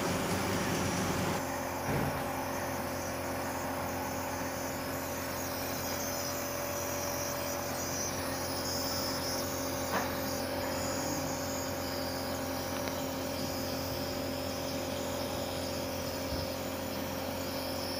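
Compressor nebulizer running steadily with an even motor hum, delivering medicine through a child's face mask for a cough. A small click about ten seconds in.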